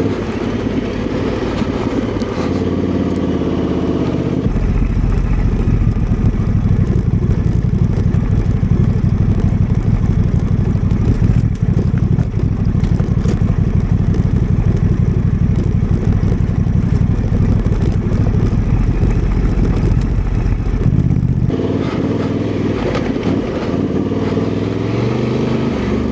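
Honda Transalp 750's parallel-twin engine running at low revs while the bike is ridden slowly over rough off-road terrain.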